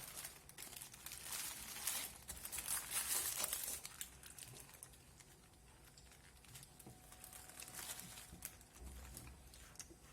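Butter paper crinkling and rustling around a wrapped shawarma as it is handled, louder in the first few seconds and then fainter with scattered small crackles.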